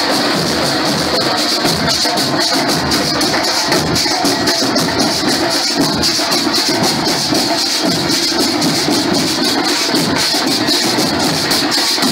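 Marching band drum line playing a fast, steady cadence, dominated by the dense rattle of many snare drums.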